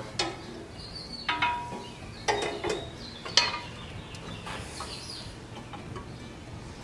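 Light metal clinks and knocks from a thin painted sheet-metal engine backing plate being handled and fitted around the crankshaft, a few of them ringing briefly, with a soft scrape a little after the middle.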